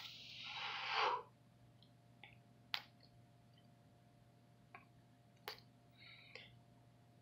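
A person blowing a breath out through pursed lips: one whoosh lasting about a second that falls in pitch. Then a few faint, sharp taps and clicks of hands meeting.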